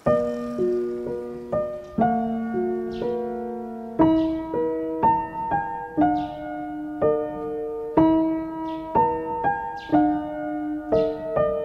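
Gentle background piano music: a slow melody of struck notes, each ringing on and fading, starting suddenly.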